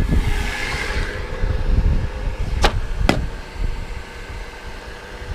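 Two sharp cracks about half a second apart near the middle, over a steady low rumble and a faint constant hum.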